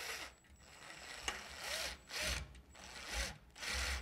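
Cordless drill driving a screw in about six short pulses, the motor whine rising and falling with each pulse.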